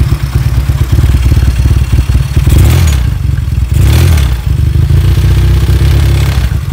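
Motorcycle engine running loud through its exhaust, revved briefly twice, about two and a half and four seconds in, then settling back to idle.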